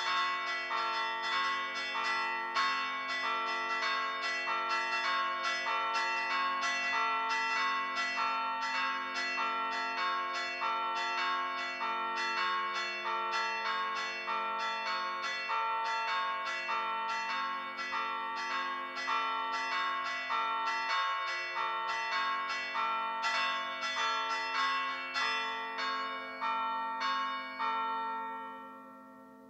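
Pritrkavanje: church bells in a tower struck by hand, the ringer knocking each bell's clapper against the stationary bell in a quick, steady rhythm over the bells' lingering ring. Near the end the strikes stop and the ringing dies away.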